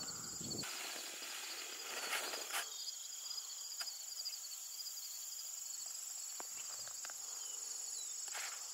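Insects chirring steadily: a continuous high-pitched, rapidly pulsing trill, with a few faint soft ticks over it.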